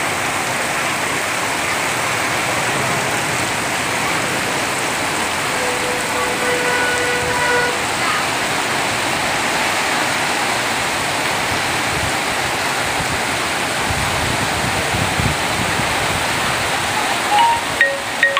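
Heavy rain pouring steadily, a dense even hiss of rain falling on the road. Near the end a few bright chime-like musical notes come in.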